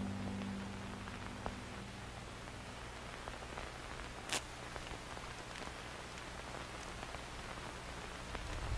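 Faint steady hiss with a few scattered light clicks, one a little louder about four seconds in; a low held musical tone fades away in the first two seconds.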